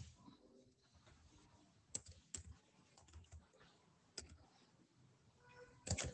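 Faint, scattered keystrokes on a computer keyboard: a few separate key clicks, then a small quick cluster near the end.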